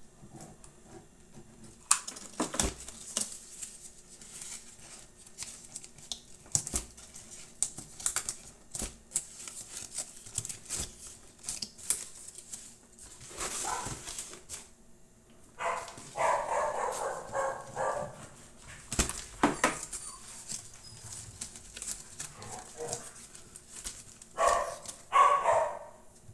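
Crumpled kraft-paper strips and a cardboard box being handled, with sharp crackles and taps throughout. A dog barks in the background for about two seconds, around two-thirds of the way through, and again briefly near the end.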